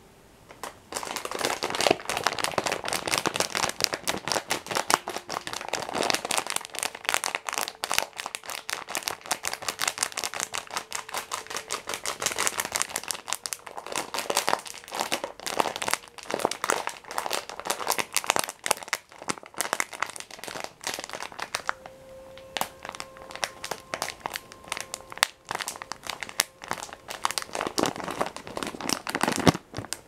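A glossy plastic biscuit packet being crinkled and squeezed close to the microphone. Dense crackling starts about a second in, eases off for a few seconds near the end, then picks up again.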